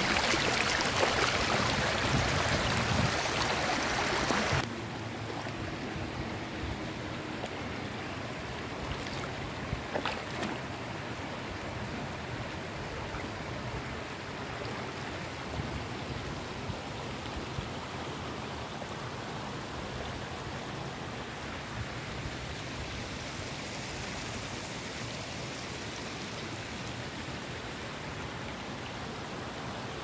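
Dam overflow water rushing over rocks in a stream, a steady even rush. About four and a half seconds in it drops suddenly to a quieter, duller rush that stays steady.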